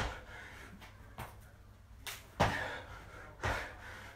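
A person doing burpees on a bare concrete floor: a run of thuds and scuffs as hands and feet land, about five in four seconds. The loudest come a little past the middle and near the end.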